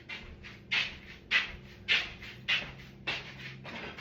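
A dog panting close by, a steady run of short breathy huffs a little under two a second.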